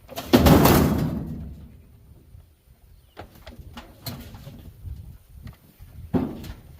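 Scrap metal being handled: a loud clattering crash that rings away over a second or so, then scattered knocks and a second, smaller clank near the end.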